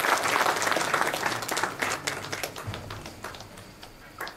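Audience applause, thinning out and fading over about three seconds, with a few scattered claps near the end.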